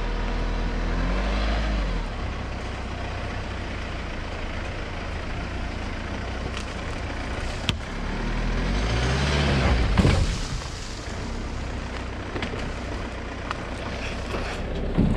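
A four-wheel drive's engine running at low revs as it crawls over a rough bush track, revving up and easing off about a second in and again building up near nine seconds. Its tyres crunch and knock over sticks and ruts, with a loud thump about ten seconds in.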